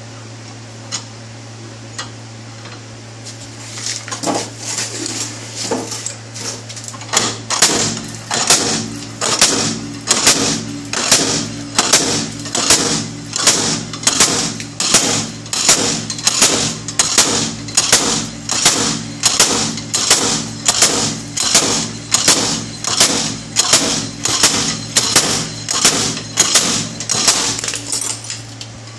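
Slide hammer on a hub puller bolted to a BMW E39's rear wheel hub, its weight slammed again and again against the stop: sharp metal-on-metal knocks, a few ragged ones from about four seconds in, then a steady rhythm of about one and a half a second, driving the hub out of the rear wheel bearing.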